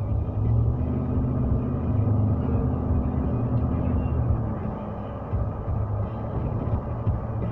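Steady road and engine rumble of a car heard from inside the cabin while driving, with a low steady hum over it for the first four seconds or so.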